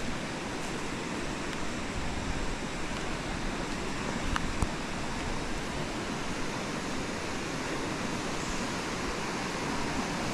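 Floodwater of a swollen river rushing steadily, an even wash of water noise, with a couple of faint clicks about halfway through.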